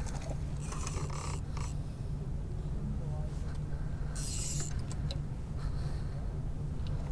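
Hooked mackerel splashing at the water's surface on the line, in two short bursts about a second in and about four seconds in, over a steady low hum.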